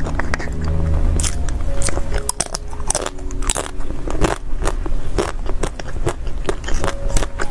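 Close-up eating sounds of fruit-shaped mousse-cake desserts: biting and chewing, with a dense string of sharp crunches and clicks, over faint background music.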